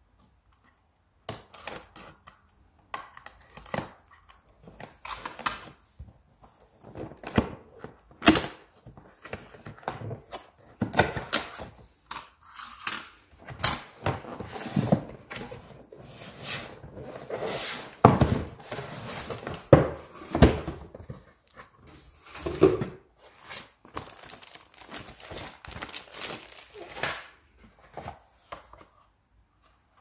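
Cardboard packaging being unpacked by hand: a utility knife slicing packing tape, cardboard flaps and inserts scraping, rustling and tearing, with irregular clicks. A couple of heavy thumps about two-thirds through as the box is handled.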